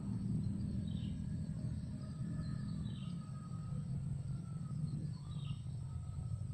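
Outdoor riverside ambience: a steady low rumble, with a bird repeating a short, falling call about every two seconds.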